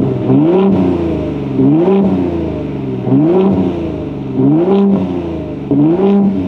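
Ford F-150 Raptor's 3.5-litre twin-turbo EcoBoost V6 revved in short throttle blips while standing, with the exhaust in its off-road-only Baja mode. Each blip rises quickly in pitch and drops back toward idle, about every second and a half.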